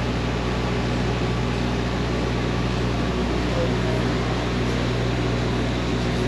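Steady mechanical hum with a constant low drone, typical of the air conditioning running inside a blood-donation bus.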